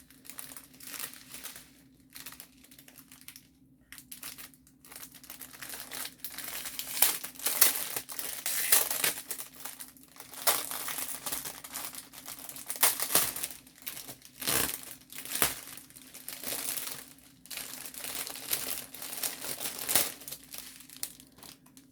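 Small plastic bags of diamond painting drills crinkling as they are handled, with irregular rustles that grow busier and louder a few seconds in. A faint steady low hum sits underneath.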